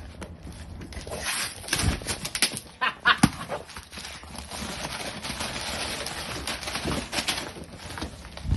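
A cardboard shipping box being worked open by hand: scattered knocks and scratches on the cardboard, then a few seconds of steady scraping and tearing.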